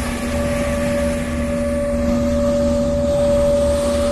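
A car ferry's engines droning steadily under way: a low rumble with a steady two-note hum.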